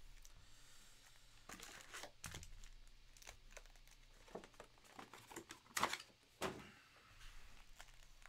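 Plastic-foil wrappers of Panini Donruss Optic basketball card packs crinkling and rustling softly as the packs are handled and squared into stacks, with two sharper crinkles about six seconds in.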